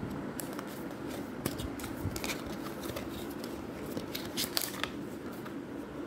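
Cardboard box being opened and a plastic speed cube slid out: a run of crisp scrapes, crinkles and clicks, busiest in the middle and latter part, over a steady low background noise.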